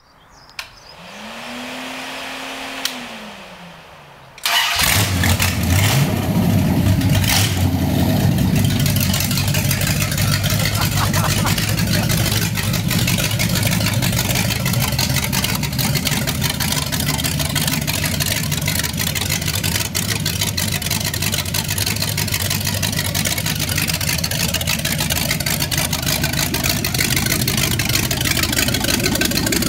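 Chrysler 318 small-block V8 with a 340 camshaft and Edelbrock 500 carburettor on a single-plane intake, on its first start after a rebuild: a few seconds of cranking, then it catches about four seconds in, revs briefly and settles into steady running.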